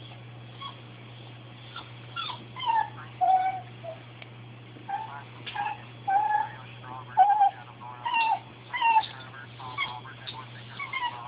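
Pembroke Welsh corgi whining: a string of short, high crying yelps, many sliding up or down in pitch, begging for something he wants.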